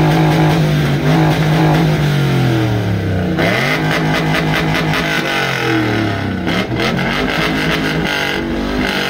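1950s Chevrolet pickup's engine being revved hard: one long rev held high for about two seconds, dropping back about three seconds in, then a run of quick throttle blips.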